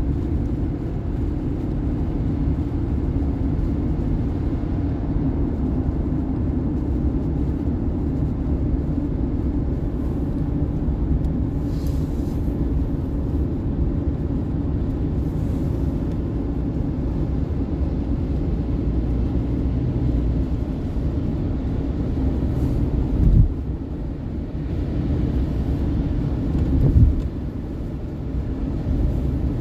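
Car driving on a highway, a steady low rumble of road and engine noise, with two brief low thumps late on.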